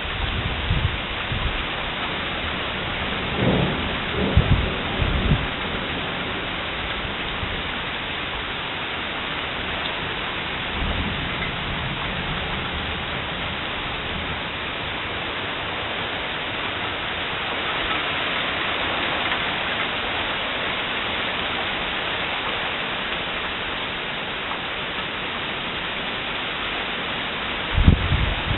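Heavy thunderstorm rain falling steadily on an asphalt road and paving stones, a little heavier past the middle. A few short low rumbles come a few seconds in, again later, and near the end.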